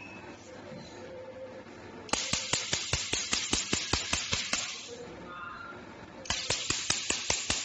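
PicoSure picosecond laser firing pulses onto a black test surface, each pulse a sharp snap, about five a second. One run starts about two seconds in and lasts about two and a half seconds; a second run starts about six seconds in.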